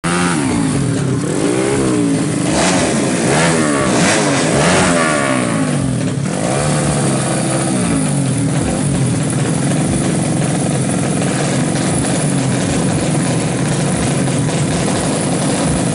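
Honda Astrea Grand race-tuned 100 cc single-cylinder four-stroke engine with an open racing exhaust, revved in a string of quick throttle blips, then settling to a steady idle about six seconds in.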